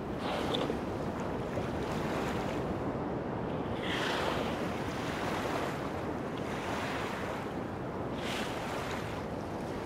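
Steady rushing of wind and sea water, swelling every few seconds.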